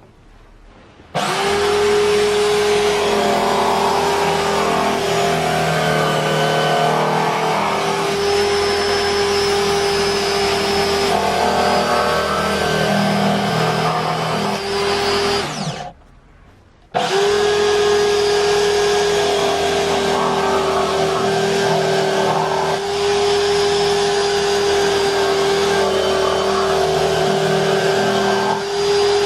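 Electric drill motor running at a steady whine, starting about a second in, stopping after roughly fifteen seconds, then starting again a second later.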